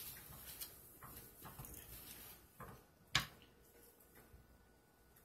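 Quiet handling sounds of gloved hands shifting a metal wire soap cutter and sliding a soft soap loaf along a wooden cutting board: scattered faint taps, with one sharp click about three seconds in.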